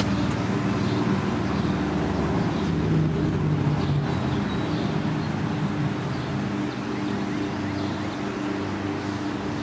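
Steady low hum of a running motor, with a few held low tones; it eases off slightly about six seconds in.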